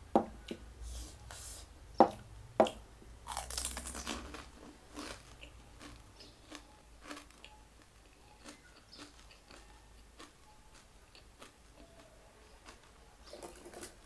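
Close-up chewing and crunching of food in the mouth: three sharp crunching bites in the first three seconds, a burst of crunching a second later, then quieter, scattered wet chewing clicks.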